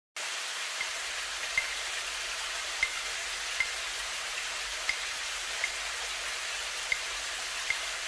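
Steady hiss of falling water, like a waterfall or rain, with faint light ticks coming in pairs about every two seconds.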